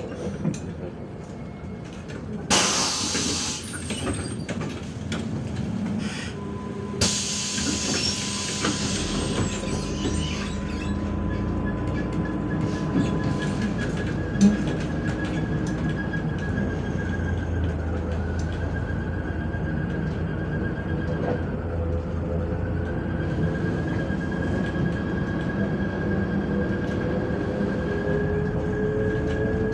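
Inside a MAZ-105 city bus under way: compressed air hisses loudly twice early on. After that the engine and driveline run steadily, with a whine that rises in pitch near the end as the bus speeds up.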